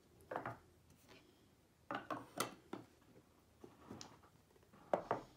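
A small wooden box of cards and a board being picked up and moved on a wooden table: light knocks and scrapes in three short groups, the last near the end.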